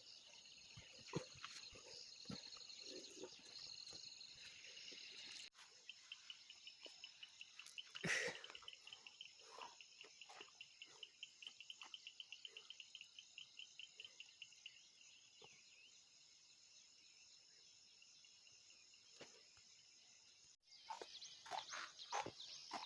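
Faint chorus of night insects, crickets, trilling steadily. One insect gives rapid pulsed chirps from about five seconds in to about fourteen. A few faint rustles and clicks, and one louder knock about eight seconds in.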